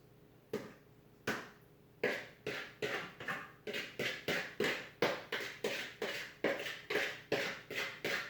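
A quick series of sharp taps or slaps: two single ones, then a steady run of about two a second.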